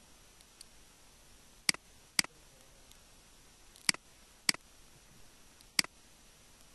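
Five sharp clicks of a computer mouse button, in two quick pairs about half a second apart and then a single one, over faint room hiss.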